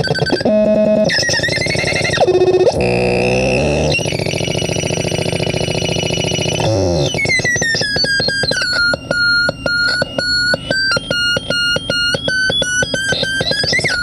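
Homemade crystal-radio noise synth putting out electronic tones and noise. Its pitch glides and sweeps as its knobs are turned, with a long falling glide about seven seconds in. About a second later it settles into a choppy, stuttering pattern of repeating bleeps, about two to three a second.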